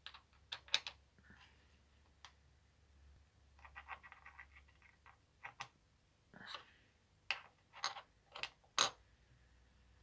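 Light metal clicks and taps as drill bits are pushed into the pivot holes of flat metal knife templates and the pieces are handled on a work mat, with a quick run of rattling clicks about four seconds in and a few sharper taps near the end.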